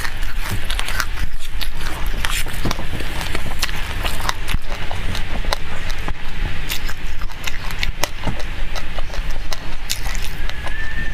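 Close-up chewing of a mouthful of raw black sesame seeds: dense, irregular crackling clicks as the tiny seeds crack between the teeth, over a steady low hum.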